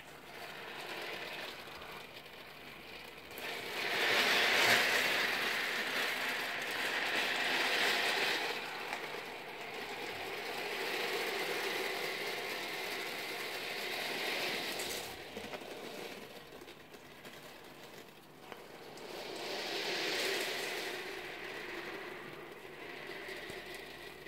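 Thousands of 8 mm steel ball bearings rolling and clattering against one another as their tray is shaken: a dense, continuous rattle that swells and fades in waves. It is loudest about four to eight seconds in, with further swells near the middle and again around twenty seconds.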